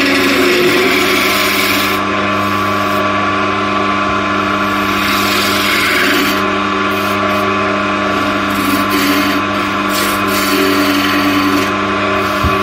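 Wood lathe running with a steady hum while a gouge hollows the inside of a spinning linden blank, the cut coming and going in repeated scraping passes.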